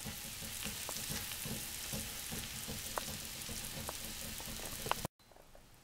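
Freshly broiled chicken parmesan sizzling in its glass baking dish: a steady hiss with many small crackling pops from the hot, browned mozzarella and tomato sauce. It cuts off suddenly near the end.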